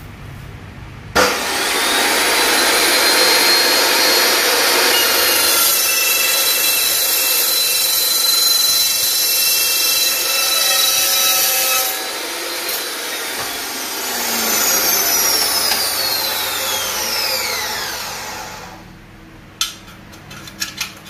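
Makita LC1230 slow-speed metal cutting saw with a 305 mm carbide-tipped blade, switched on about a second in and cutting through a steel section at an angle: a loud grinding screech with steady ringing tones. Near the end the blade spins down with a falling whine, followed by a few clicks.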